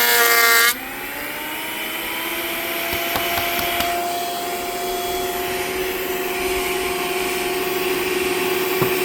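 Electric planer running. Less than a second in, the louder, busier noise stops and the motor's whine rises in pitch, then settles into a steady hum as it keeps spinning.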